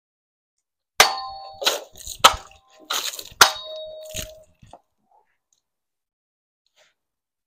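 Steel longsword striking a liquid-filled plastic jug set on a wooden pell. About seven sharp hits come within four seconds, and three of them ring on metallically; then it stops.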